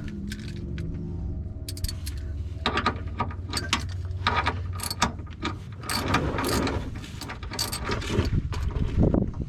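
Hand socket ratchet clicking in uneven runs of strokes, with scrapes of metal on metal, as bolts are worked.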